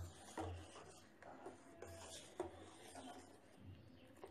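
Faint scraping of a metal ladle stirring boiled milk in a steel saucepan, with a few light knocks of the ladle against the pan.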